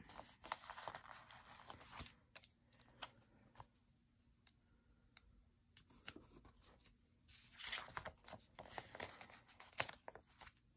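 Quiet paper handling: planner stickers being peeled from their backing sheet and pressed onto a planner page, soft rustles and small clicks, busiest in the first couple of seconds and again about two-thirds of the way through.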